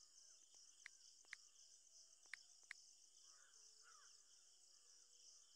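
Near silence: four faint taps from a smartphone's on-screen keyboard as a short word is typed, two about a second in and two more a second later, over a steady faint high hiss.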